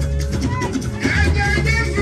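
Live band music with drum kit and shakers keeping a steady beat, and a voice singing from about a second in.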